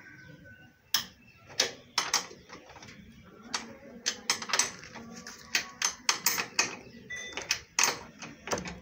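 Irregular sharp metallic clicks and clinks, some in quick pairs and runs, of tools and metal parts being handled while the front steering and fork assembly of an auto-rickshaw is taken apart.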